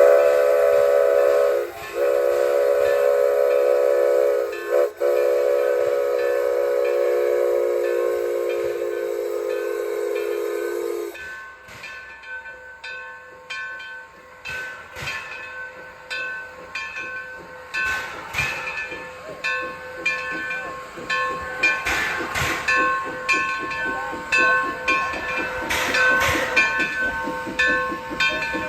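Shay steam locomotive whistle blowing in three blasts: two short breaks about two and five seconds in, then a long blast that sags slightly in pitch and stops about eleven seconds in. After it, steam hisses and a string of irregular sharp puffs grows louder.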